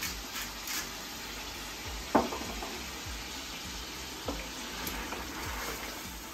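Meat sizzling as it fries in a pot while being stirred with a wooden spoon, after a few last turns of a pepper mill at the start. A sharp knock about two seconds in, with lighter clicks later, is the spoon against the pot.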